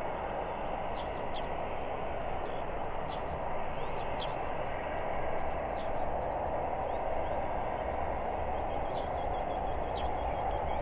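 Boeing 737-900ER's CFM56-7B jet engines at takeoff power during the takeoff roll, heard from a distance as steady, even jet noise. Short bird chirps come and go above it.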